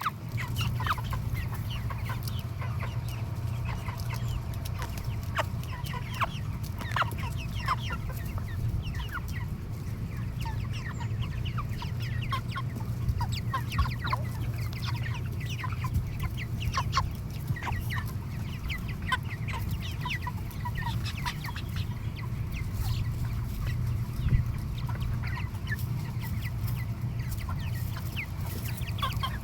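A large flock of broiler chickens clucking and peeping continuously, many short overlapping calls, over a steady low hum.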